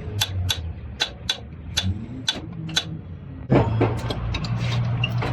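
Diesel injector nozzle being pressure-tested on a hand-lever nozzle tester: sharp clicks about twice a second over a low steady hum. About 3.5 s in, a louder, busier mechanical clatter starts.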